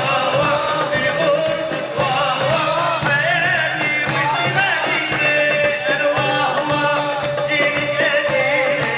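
A live band playing Middle Eastern dance music: an ornamented, wavering melody over a steady drum and bass beat.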